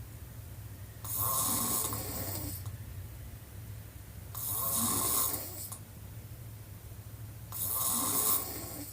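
A woman snoring with her mouth wide open: three rattling snores, about three seconds apart, each with a breathy hiss.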